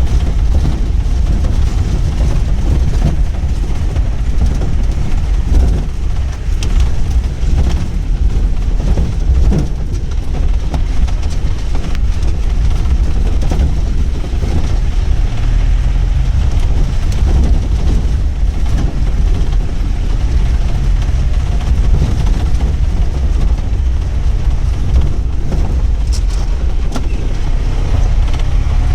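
Pickup jeep driving on a rough dirt ghat road: a steady loud low rumble of engine and road noise, with scattered knocks and rattles.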